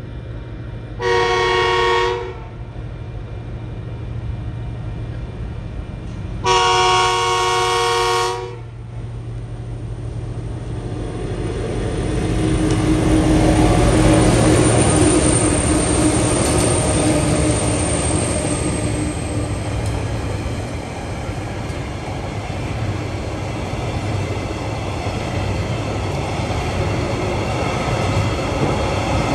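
Diesel freight train's horn sounding two blasts, a short one and then a longer one about five seconds later. The locomotives' engines then rise and pass close by, loudest about halfway through, followed by the steady rumble and clatter of flat wagons rolling over the crossing.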